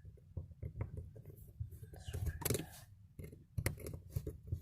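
Irregular small clicks and taps of a screwdriver being handled and set to the screws of a plastic caravan socket fitting, with one sharper click about three and a half seconds in and a short hiss about two and a half seconds in.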